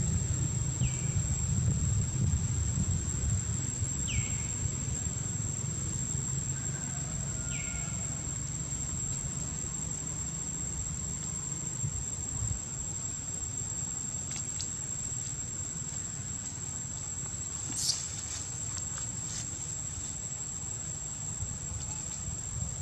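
A steady, high-pitched insect drone runs under a low rumble that fades over the first dozen seconds. There are three short squeaks falling in pitch at about one, four and seven seconds in, and one sharp click about three quarters of the way through.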